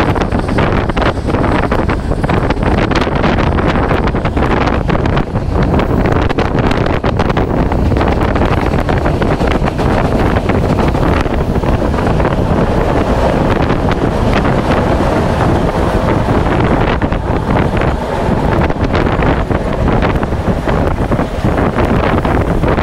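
Wind buffeting the microphone over the steady running noise of a moving passenger train, with no break in level.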